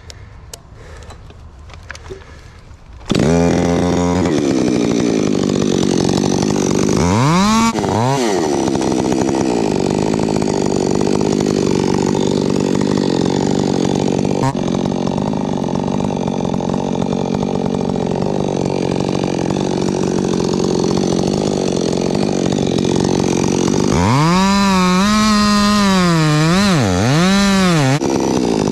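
Chainsaw starting about three seconds in and revving, then running at high speed for a long steady stretch. Near the end it revs up and down several times.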